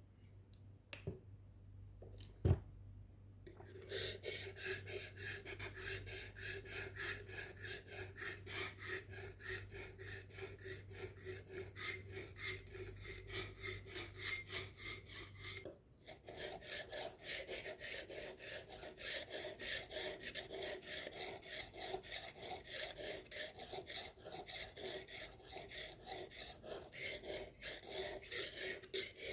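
Knife blade being hand-sharpened, scraped back and forth in a quick steady rhythm of rasping strokes, about two or three a second. A single knock comes before the strokes start about four seconds in, and they break off briefly past the middle before carrying on.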